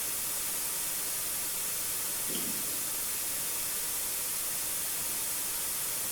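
Steady high-pitched hiss at an even level, with one faint, short low sound about two and a half seconds in.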